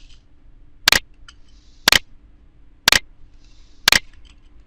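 Four sharp, loud clicks, evenly spaced about a second apart, with a faint hiss between them.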